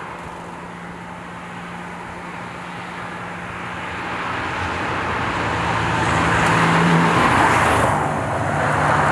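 A car driving, its engine and road noise growing steadily louder through the second half, with a brief dip near the end before it rises again.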